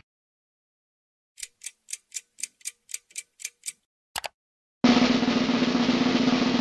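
Cartoon puzzle sound effects: about ten quick, even ticks at roughly four a second, a sharp double click, then a loud steady drum-roll-like rattle as the chosen wheel slides onto the truck.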